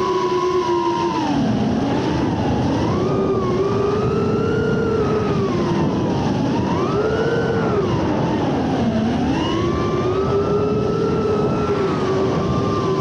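FPV quadcopter's electric motors and propellers whining, the pitch swooping up and down as the throttle changes, with dips about a second and a half in and again around nine seconds.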